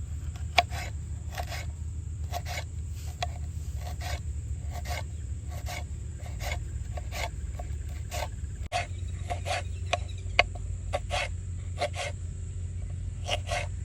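Knife cutting food in a series of short strokes, about two a second, with a slight rasp to each.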